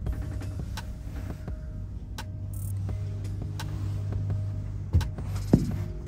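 Cable car gondola cabin riding along its cable: a steady low hum with a faint rattle and light clicks, and two sharp knocks about five seconds in.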